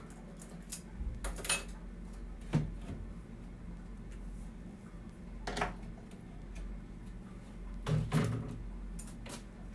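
A handful of separate light knocks and clicks from handling a small metal hinge and a marker against a wooden cage door frame, over a low steady hum. The loudest knocks come about eight seconds in.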